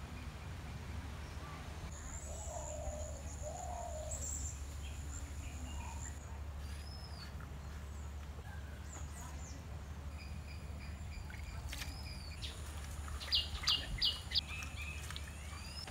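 Wild birds calling: scattered short chirps and whistled notes, with a quick run of four loud, high notes a little before the end, over a steady low background hum.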